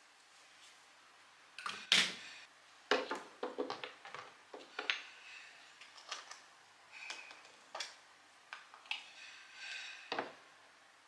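Small plastic skincare bottles and a cosmetic jar being set down and handled on a desk: a string of sharp clicks and knocks, the loudest about two seconds in, with the jar's screw lid twisted off and set down toward the end.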